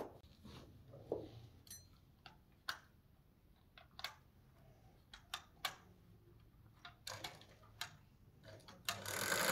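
Scattered sharp clicks and light knocks at uneven intervals, then a louder steady rushing noise starts near the end.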